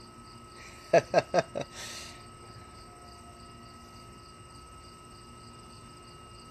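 Steady chirping of crickets. About a second in come four quick yelps, each falling sharply in pitch, then a brief hiss.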